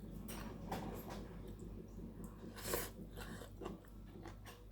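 Close-up eating sounds: chewing with scattered short mouth smacks and soft clicks, one louder smack nearly three seconds in.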